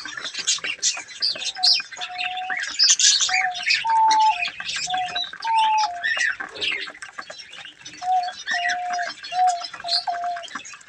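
A flock of budgerigars chattering and chirping in a dense, fast jumble of high notes. Under it, a lower piping note repeats in short, even-pitched calls.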